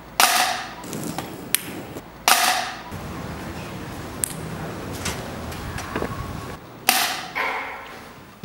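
A string of sharp knocks and taps of balls striking hard surfaces. Three louder hits, near the start, about two seconds in and about seven seconds in, each trail off over about half a second, with a few thin clicks between them.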